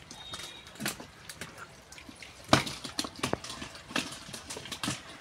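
Wet slaps and thuds at irregular intervals, about a second apart, as live fish are grabbed out of the mud and dropped into boxes.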